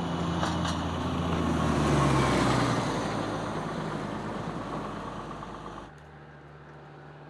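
NDM6 narrow-gauge diesel locomotive running past close by, its engine note growing loud and dropping in pitch about two seconds in as it passes, then fading. Near six seconds it cuts abruptly to a quieter, steady distant engine hum.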